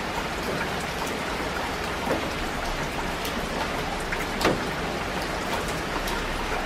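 Steady rain falling, an even hiss dotted with single drop hits; one louder drop strikes about four and a half seconds in.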